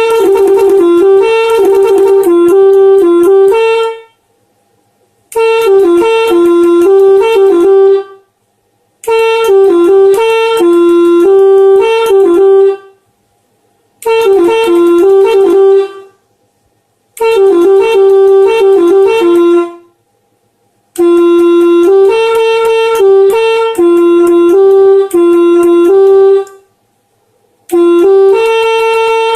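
Telolet multi-tone air horn playing tunes from its button module: short melodies of quick stepping notes, each phrase a few seconds long, about seven in a row with brief silent pauses between them.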